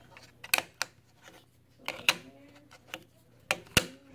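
Handling noise as an Oreo cookie is held and set against a hard tabletop: about five sharp taps and clicks, spread out, the loudest near the end.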